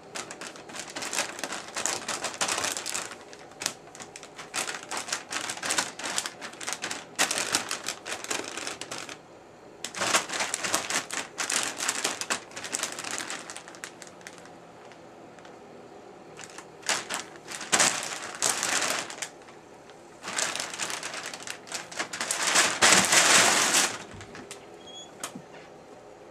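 Plastic bag crinkling and rustling in bursts of a few seconds as a cat moves around inside it, with quieter pauses between.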